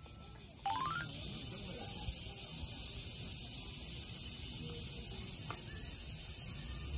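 A loud, steady chorus of shrilling insects, most likely cicadas, starting suddenly about half a second in, just after a short rising tone.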